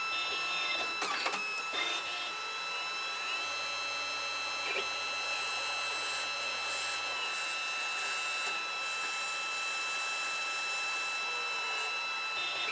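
CNC lathe running a programmed machining cycle: a steady high whine with a hiss that swells and fades, and a few sharp clicks about a second in.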